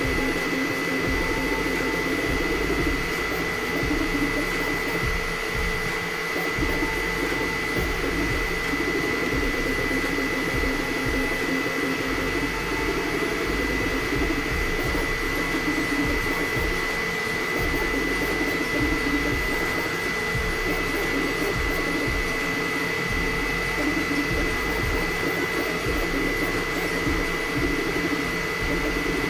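Elegoo FDM 3D printer mid-print: its cooling fans run with a steady high whine while the stepper motors hum and change pitch every second or two as the print head moves.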